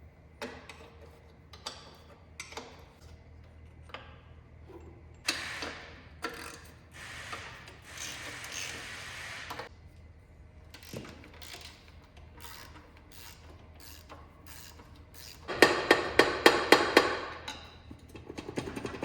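Hand tools working on metal car parts: scattered clinks and knocks, a few short scraping stretches, and a loud run of rapid clicking near the end, like a ratchet wrench being turned.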